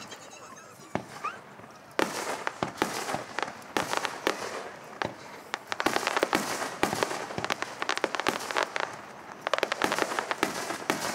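Aerial fireworks bursting: a few separate bangs at first, then from about two seconds in a dense run of rapid booms and crackling.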